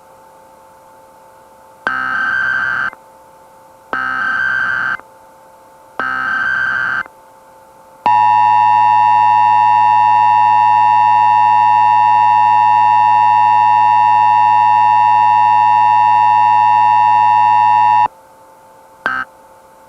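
Emergency Alert System header: three one-second bursts of SAME data tones about two seconds apart, then a loud, steady ten-second EAS attention signal that cuts off, with one brief burst near the end, all over a faint steady hum.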